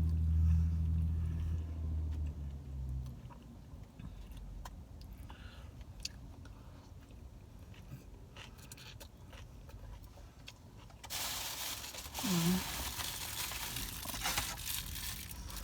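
Close-mic chewing and crunching of crispy fried chicken, with scattered crunches, after a low steady hum in the first few seconds. From about eleven seconds in, a paper napkin rustles and crinkles.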